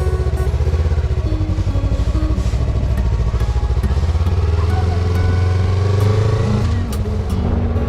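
Yamaha MT-25's parallel-twin engine running through an aftermarket Yoshimura exhaust, the revs climbing through the middle and dropping back about seven seconds in.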